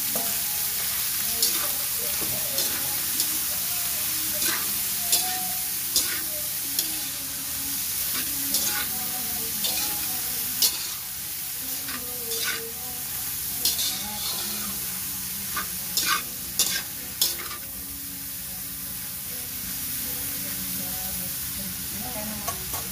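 Diced pork offal sizzling in hot oil in a wok, with a spatula scraping and knocking against the pan in irregular strokes as it is stir-fried. The stirring stops about three-quarters of the way through, leaving a steady sizzle.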